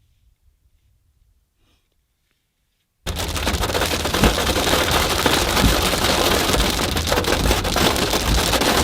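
Near silence for about three seconds, then suddenly hail hitting a vehicle, heard from inside: a loud, dense patter of many small impacts.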